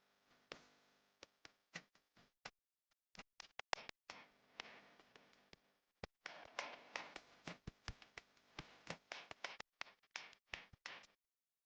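Raindrops tapping irregularly on a hard surface close by, sharp single clicks coming in uneven clusters, densest in the second half.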